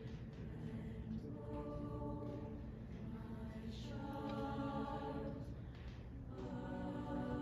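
Mixed high school choir singing sustained chords in slow phrases of about two seconds each, swelling and easing between them.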